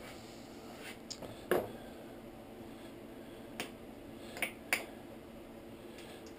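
Scattered sharp clicks and light taps of hand tools and small metal parts against the motorcycle's front end as bolts are worked in, about five in all, the loudest about a second and a half in.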